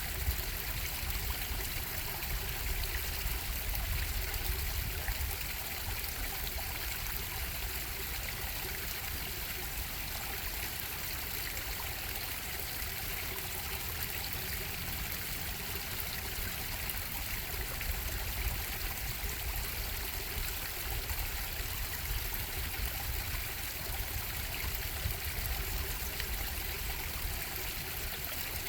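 A stream running and trickling over rocks: a steady, even rush of water with a low rumble underneath.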